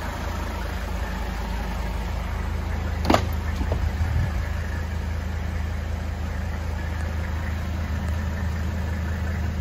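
The 1979 Mercedes-Benz 300SD's 3.0-litre turbodiesel inline-five idling steadily with a low hum. About three seconds in there is one sharp click as the rear door is opened.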